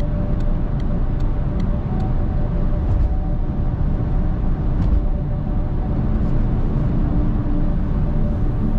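Steady road noise heard inside a moving car: a low rumble of engine and tyres. In the first two seconds there is a light, regular ticking, about two or three ticks a second.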